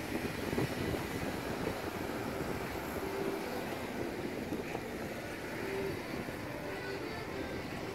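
Steady street traffic noise as a car drives past and a Solaris Urbino 12 city bus approaches with its engine running.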